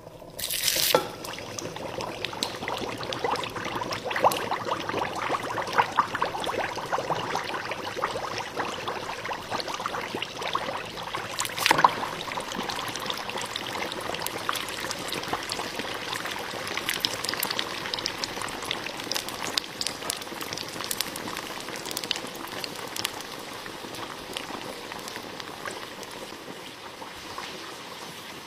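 Oil in glasses bubbling and sizzling with dense, irregular crackles. There is a sudden loud burst about a second in as the balls go into the oil, and another about twelve seconds in.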